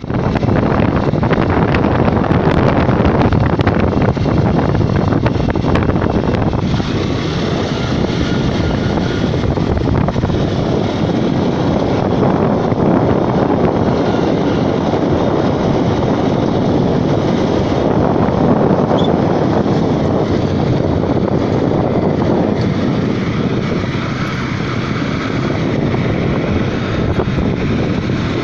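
Motorcycle running at a steady speed, its engine drone buried in heavy wind noise on the microphone.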